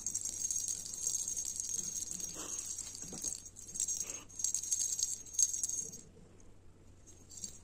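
Plastic lattice cat toy ball with a bell inside, rattling and jingling as it is shaken by hand in uneven shakes; the shaking stops about six seconds in, apart from a brief jingle near the end.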